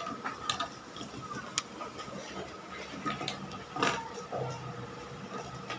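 Plastic pop tube toy being stretched and bent, its ridged sections snapping out with scattered clicks and crackles; the loudest snap comes about four seconds in.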